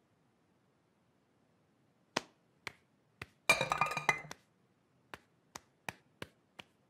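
Metal saucepans clattering and clinking briefly as they are set down on a kitchen worktop, after a few sharp clicks. Then a run of light, quick footsteps, about three a second.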